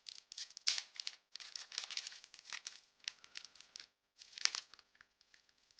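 Foil Pokémon booster pack wrapper crinkling and crackling in irregular bursts as it is handled and worked at to tear it open.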